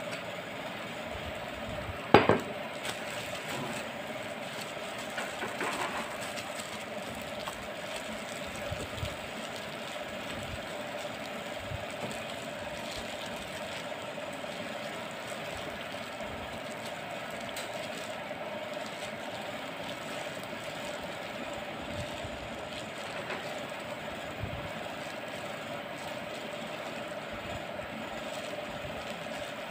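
A gloved hand mixing raw chicken in a glass bowl, with soft squelching and plastic-glove rustling, over a steady mechanical hum. One sharp knock stands out about two seconds in.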